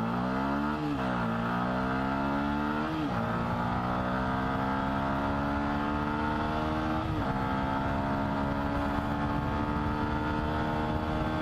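2015 Yamaha YZF-R125's single-cylinder four-stroke engine accelerating hard from a standstill, rising in pitch through the gears. It upshifts about a second, three seconds and seven seconds in, and climbs more slowly in each higher gear.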